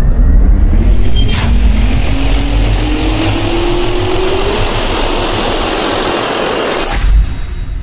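Logo-intro sound effect of a jet turbine spooling up: a steady rush and low rumble under a whine that rises slowly in pitch, with a sharp hit about a second and a half in and another near the end.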